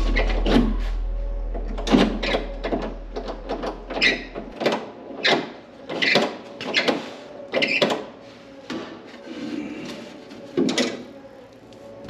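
Irregular metallic clanks, knocks and rattles of parts being handled inside the bare sheet-metal shell of an 85 Cutlass door, under a low hum that fades out about four seconds in.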